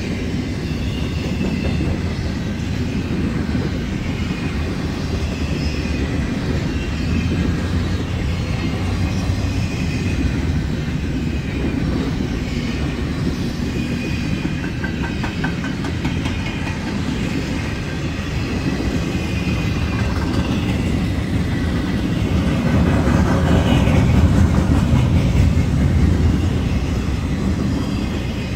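Double-stack intermodal freight train's well cars rolling past: a steady rumble of steel wheels on rail, with faint high-pitched wheel squeal above it. It grows a little louder toward the end.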